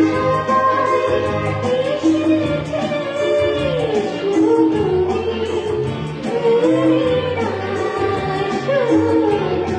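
A woman singing a Hindi film song over instrumental accompaniment with a steady, repeating beat.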